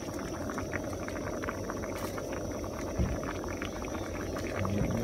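A pot of tom yum soup bubbling at the boil, a steady stream of small pops and bubbling, with one soft knock about three seconds in.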